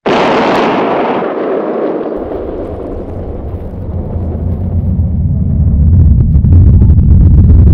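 Cannon-shot sound effect: a sudden loud boom that fades over about two seconds, then a deep rumble that rises and grows louder, loudest near the end.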